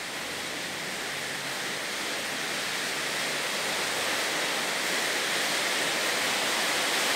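Heavy rain pouring down outside, heard from indoors as a steady, even hiss that grows slowly louder.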